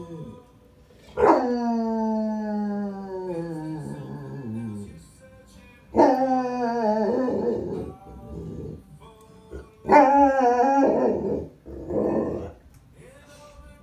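Newfoundland dog howling along to a song: three howls, the first about a second in, long and sliding steadily down in pitch, the next two shorter and breaking up at their ends.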